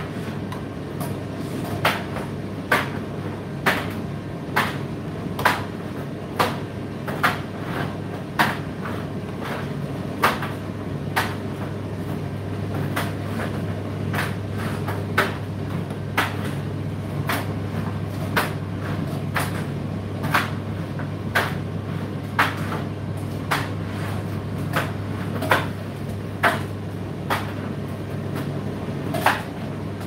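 Indesit IDC8T3 condenser tumble dryer running mid-cycle: a steady low hum from its motor and fan, with frequent irregular knocks, about one or two a second, as the load tumbles in the drum.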